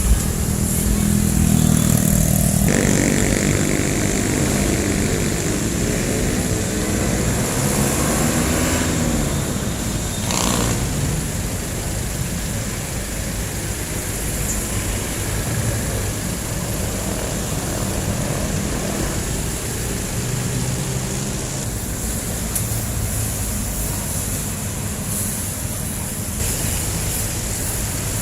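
Busy street traffic: jeepney diesel engines running and pulling away, with motorcycles mixed in. One engine revs up and back down about eight seconds in, and there is a brief sharp sound about ten seconds in.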